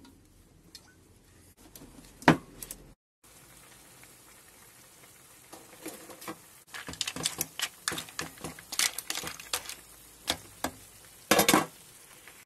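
Mussels, clams and shrimp frying in olive oil in a pan: irregular crackling and sizzling with sharp clicks of shells, loudest in a cluster near the end. Before that there is a single sharp click about two seconds in.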